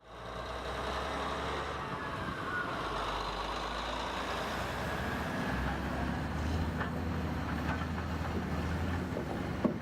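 Heavy engine-driven machinery running steadily with a low hum, a few light knocks later on and a sharp click near the end.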